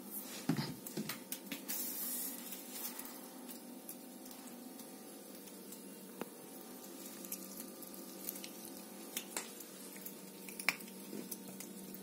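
Faint scuffs, rustles and taps as a cat bats and paws at a dry ear of wheat on the floor. A flurry in the first few seconds, then scattered sharp ticks of claws and stalk on the floor near the end, over a steady low hum.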